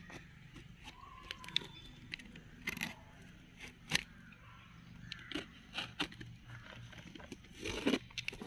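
A small knife slitting and scraping through packing tape on a cardboard parcel, with scattered clicks and crackles as the taped box is handled.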